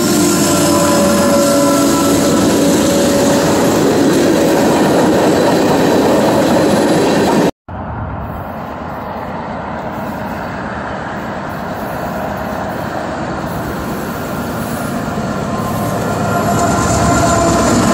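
Freight cars rolling past close by, the wheels squealing with thin steady tones. The sound cuts off abruptly; a Norfolk Southern diesel-led freight train then approaches, its rumble growing louder, with wheel squeal again near the end.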